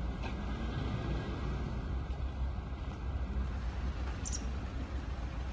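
Steady outdoor background noise: a low rumble with hiss and no clear single source, with a brief faint high squeak about four seconds in.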